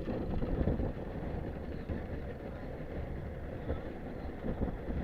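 Strong wind buffeting the microphone aboard a fishing boat at sea: a steady low rumble that swells and eases without stopping.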